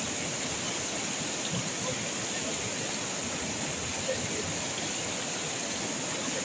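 Fast-flowing whitewater river rushing steadily over rocks and rapids.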